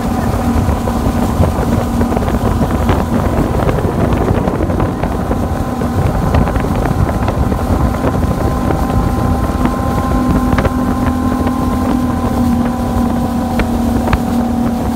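Speedboat outboard engines running steadily at high speed, a constant droning hum, with water rushing and wind buffeting the microphone.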